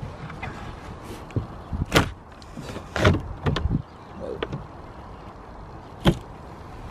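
Plastic roof vent hatch being prised up off an aluminium motorhome roof, giving a series of sharp cracks and knocks as the old silicone seal lets go. The loudest come about two and three seconds in and again near the end.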